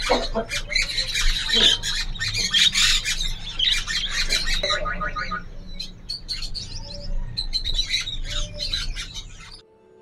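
Caged birds calling: a dense chatter of squawks and chirps from budgerigars, thinning about halfway into scattered chirps from caged finches. The calls cut off abruptly just before the end.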